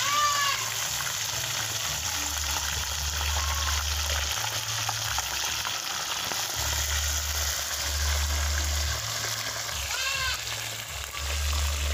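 Fish frying in a small pot of hot oil, a steady dense sizzle. A low rumble comes and goes underneath.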